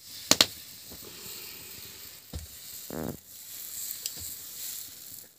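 Thin chatroyee batter sizzling with a steady high hiss as it is poured in spirals onto a hot iron griddle over a wood fire. Two sharp clicks sound just after the start, with a knock and a short buzz around the middle.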